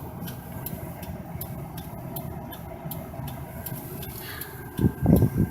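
Car turn-signal indicator ticking evenly, about two and a half ticks a second, over the low rumble of the idling engine in the car's cabin. A person's voice comes in briefly near the end.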